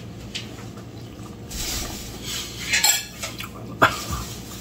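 Dishes and utensils clattering and clinking, with one sharp clink near the end.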